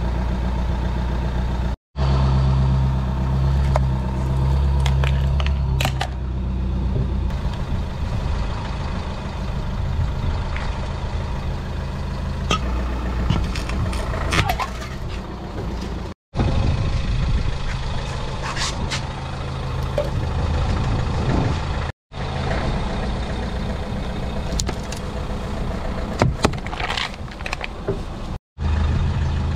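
Car engine idling steadily while the tyre rolls over things and crushes them, with a scatter of sharp cracks and crunches: a plastic toy keyboard breaking and an aluminium soda can being flattened.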